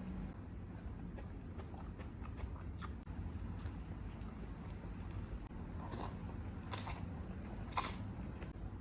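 Close-miked chewing of noodles, with soft mouth clicks and a few sharper smacking crunches near the end, over a low steady hum.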